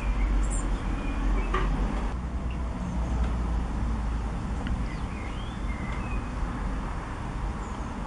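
A steady low rumble with small birds giving several short, faint chirps and whistles over it.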